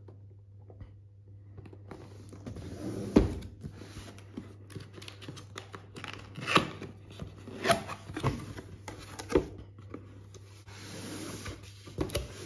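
A cardboard retail box being handled and opened on a wooden table: a sharp knock about three seconds in as it is set down, then several shorter knocks and cardboard rubbing and scraping as the lid and flaps are opened.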